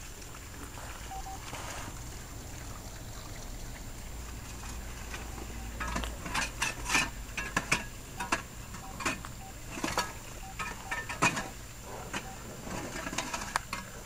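Broken ice on the concrete pad crunching and cracking in irregular sharp clicks, several a second, starting about six seconds in.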